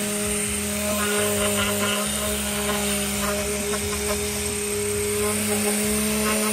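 Random-orbital sander running with a steady hum, its pad sanding paint off a car's quarter panel down to bare metal around dings and rust spots.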